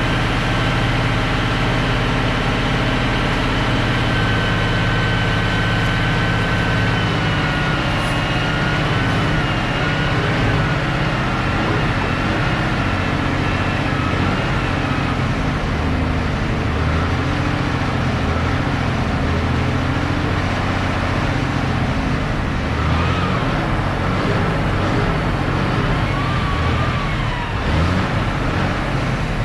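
Bobcat skid-steer loader on metal tracks running steadily while working, its engine note shifting with load and a whine that wavers up and down in pitch.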